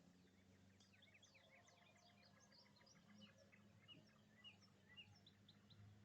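Faint chorus of small songbirds chirping and twittering, with many quick falling notes overlapping from about a second in. A steady low hum sits underneath.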